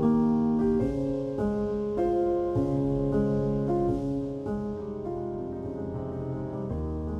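Background music led by piano: held chords and notes that change about every half second to a second.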